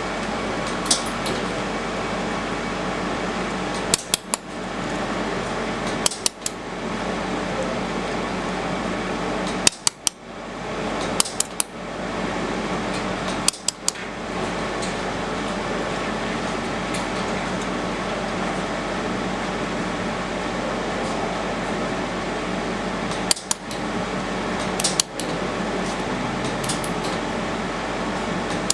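Fiber laser welding machine humming steadily from its cooling fans, with about a dozen sharp metallic clicks scattered through.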